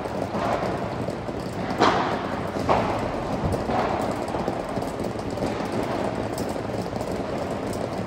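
A padel rally: the ball is struck by rackets and bounces, giving several sharp pops a second or so apart, the loudest about two seconds in, over a steady low hum.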